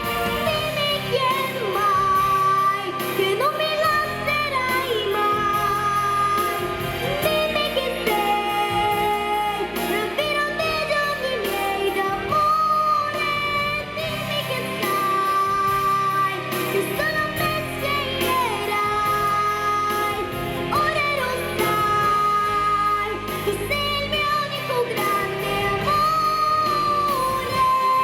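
A female voice singing over instrumental backing music, with long notes that slide up and down in pitch.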